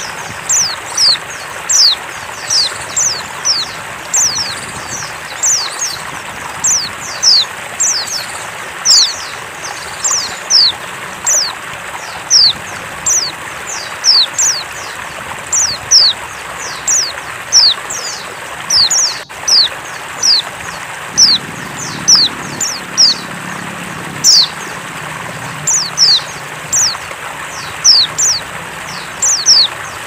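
Female pleci (white-eye) calling over and over in short, high, downward-sliding chirps, about two a second and often in quick pairs, over a steady hiss. It is the female's call used to draw a male into song.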